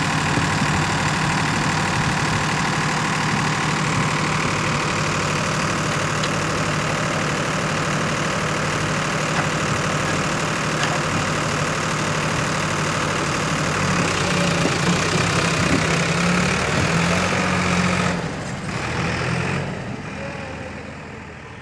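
Diesel engines of a Sonalika DI 745 III tractor and a JCB 3DX backhoe loader running steadily under load as the backhoe pushes the tractor's mud-stuck, loaded trolley. The engine note wavers toward the end, then the sound fades out.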